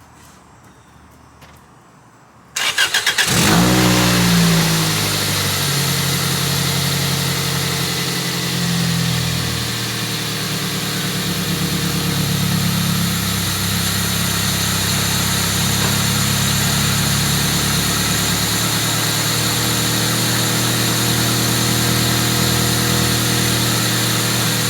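Toyota Celica engine cranked by the starter about two and a half seconds in, catching quickly, flaring up briefly, then settling into a steady idle.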